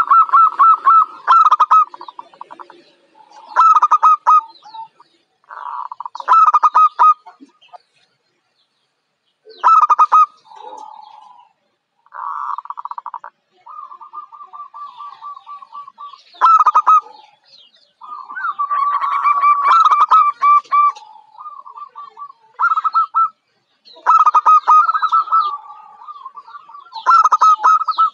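Zebra dove (perkutut, Geopelia striata) singing: short phrases of rapid staccato cooing notes, repeated every two to three seconds with brief pauses between.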